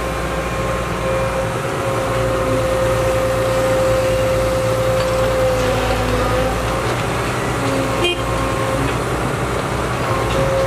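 Caterpillar 312C hydraulic excavator's diesel engine running steadily under load as it digs and swings a bucket of soil over a dump truck, with a steady high whine through the first half and a short knock about eight seconds in.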